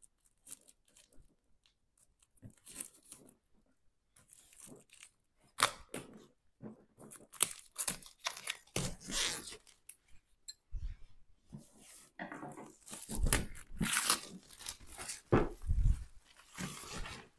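Clear plastic shrink wrap being torn and pulled off a cardboard board-game box, with irregular crinkling and crackling that grows louder and busier over the last few seconds.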